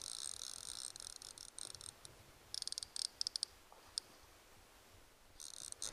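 Fly reel's click-and-pawl ratchet buzzing, then clicking in short quick bursts, as line runs on or off the reel while a salmon is being played.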